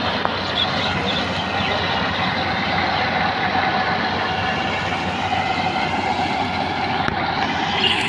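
Kubota PRO588-IG mini combine harvester running, a steady mechanical noise that holds an even level throughout.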